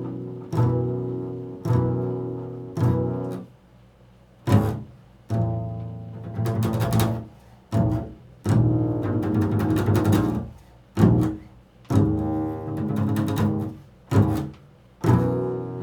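Jazz recording with a prominent double bass, a string of separate notes, each starting sharply and ringing on, with short breaks between phrases.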